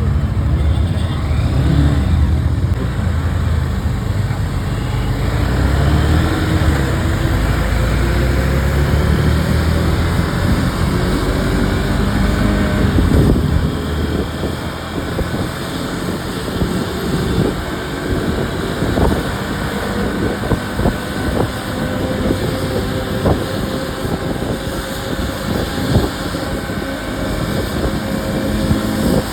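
Motorcycle engine running under way, its pitch rising and falling with the throttle, over wind and road noise on the phone's microphone. The engine is loudest in the first part and eases off about halfway through, with a few sharp knocks later.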